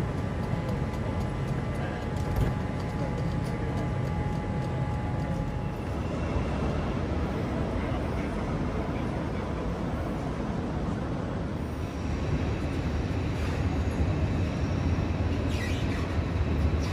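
Railway station platform ambience: a steady low rumble and hum from standing trains and the station hall, with faint distant voices.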